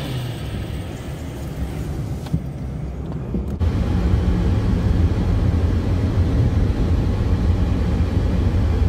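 Car interior noise while driving, a steady road and engine hum. About three and a half seconds in it changes abruptly to a louder low rumble of wind through the open side window.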